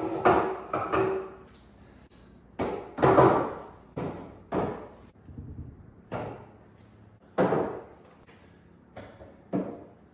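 Long white ash boards and wooden-topped trestles being set down and shifted into place on a concrete floor: a series of about a dozen hollow knocks and thuds, each ringing briefly.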